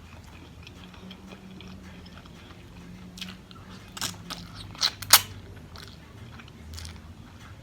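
Close-miked chewing and biting, with a few sharp crunchy clicks a few seconds in.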